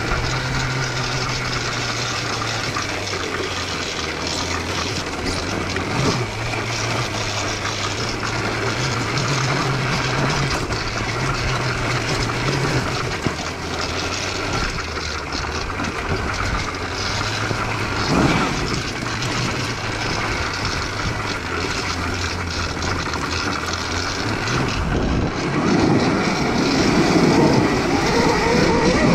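Homemade electric dirt bike riding over a rough forest trail: a steady low motor drone under a noisy rush of tyres, drivetrain and plants brushing the bike. Near the end a pitched whine rises and falls as the bike picks up speed on bare dirt.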